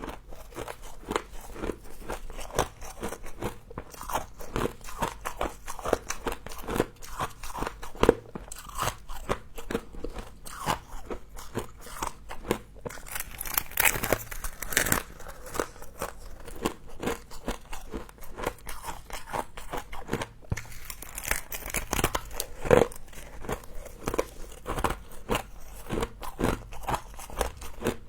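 A person biting into and chewing mouthfuls of frost: a run of irregular crisp crunches, several a second, with a few louder bites scattered through.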